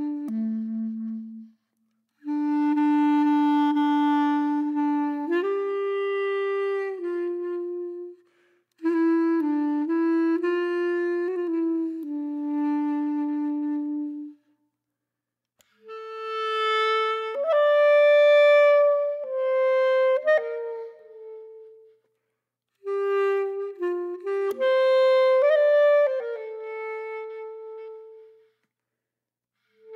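Background music: a single woodwind playing a melody in phrases of a few seconds, with short silences between them.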